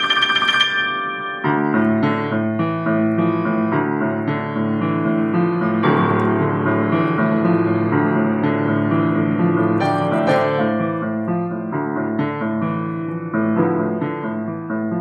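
Grand piano played solo: quick high notes for the first second and a half, then full chords over a bass line.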